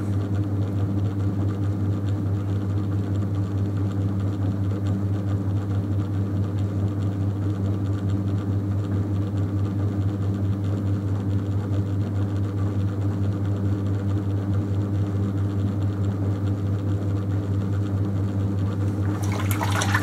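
Electric potter's wheel running with a steady low hum, with the wet sloshing of water-slicked hands on spinning clay as a pot is thrown.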